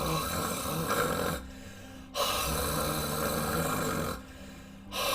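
A person deliberately snoring, so that the root of the tongue rattles, while pushing a strong stream of breath forward. This is the step toward a rolled R (tongue trill). It comes as separate rattling exhalations: one ends about a second and a half in, another runs from about two to four seconds, and a third starts near the end.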